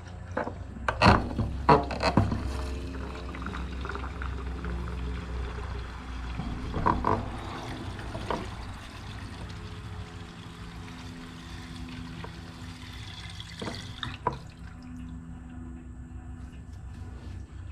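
Gasoline being poured from a can into the fuel tank of an 8 hp Briggs and Stratton engine, with a few knocks near the start as the can and cap are handled. The pouring stops about fourteen seconds in.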